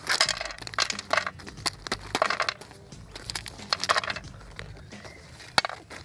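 Plastic ration pouch crinkling as it is torn and shaken open, with pieces of dry beef jerky tipped out to clatter onto a metal tray, and one sharp click near the end.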